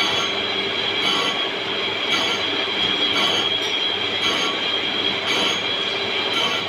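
Lathe-mounted tool-post grinder running against the flights of a plastic injection-molding machine screw: its motor and spinning abrasive wheel give a steady high whine over a lower hum, with a faint pulse about once a second.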